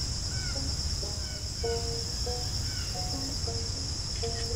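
Steady high-pitched chorus of crickets or similar insects, with music playing in the background as a run of short repeated notes.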